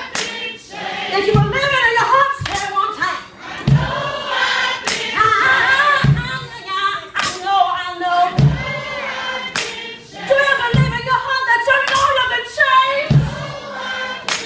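A woman singing, with other voices joining in, over hand claps and thuds on the beat about every second and a quarter.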